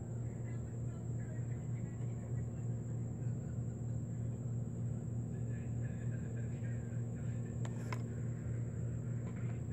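Steady low hum with faint voices and music from videos playing in the background, and a single sharp click a little before the end.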